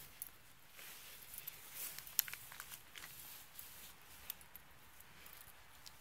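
Footsteps crunching and crackling over rubble, dead leaves and broken debris, with scattered sharp snaps and clicks, the loudest about two seconds in.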